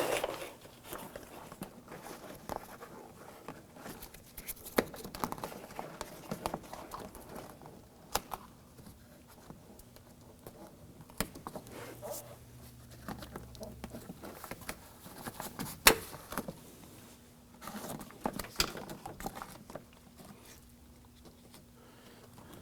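Plastic door water shield being handled and pressed onto the door shell: on-and-off crinkling and rustling of the sheet, with scattered small clicks and taps, the sharpest about 16 seconds in.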